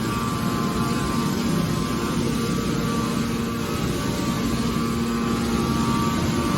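Hydraulic can baler's electric motor and pump running with a steady hum.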